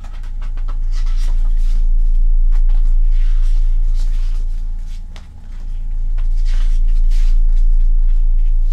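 Pages of a CD album's photo book being flipped by hand: soft paper rustles and flicks, over a steady low rumble that dips briefly twice.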